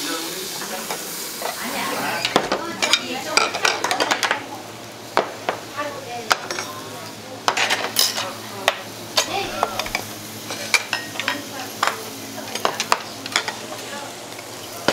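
Marinated beef sizzling on a charcoal tabletop grill, with frequent sharp clicks and clinks of metal tongs on the grate and of dishes being set down.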